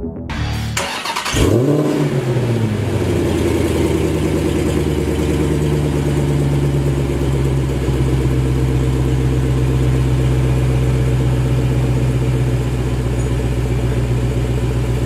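Dodge Challenger SRT Demon 170's supercharged 6.2-litre HEMI V8 being push-button started. It cranks about a second in, catches with a quick rev flare that rises and falls, then settles into a steady idle.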